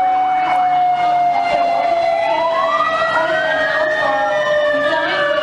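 Siren tones of an emergency alert alarm wailing, with several held tones sounding together. The strongest tone slowly sags in pitch, and about two seconds in a second tone sweeps up and then slowly back down.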